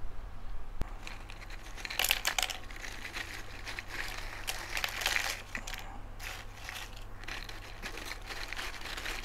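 Tortilla chips rustling and clattering as they are tipped and scooped out of a plastic jar onto a tray. The crisp crackling starts about two seconds in and comes in uneven bursts.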